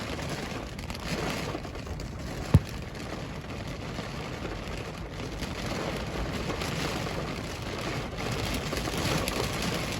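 Steady rain with wind noise, and a single sharp knock about two and a half seconds in.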